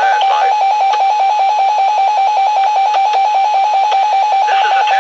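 Weather alert radio sounding its alarm for a Required Weekly Test: a single high-pitched beep pulsing rapidly and evenly. A broadcast voice is faintly heard under it near the start and again near the end.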